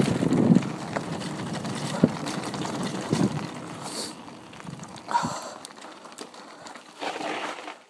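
Bicycle rolling fast down a loose gravel dirt road: tyres crunching over stones and the bike rattling, with a few sharp knocks from bumps. The noise eases off in the second half.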